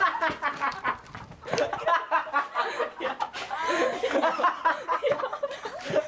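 People laughing and snickering, several voices overlapping.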